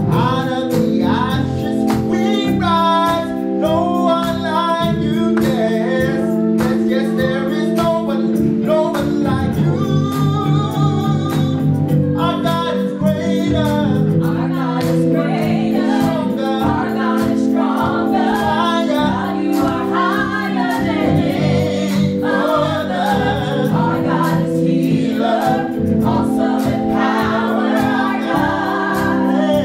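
Gospel singing: a man sings a melismatic, bending vocal line into a microphone over long held organ chords that he plays himself.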